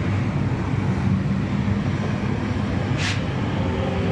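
Steady low engine and traffic rumble, with a short hiss about three seconds in.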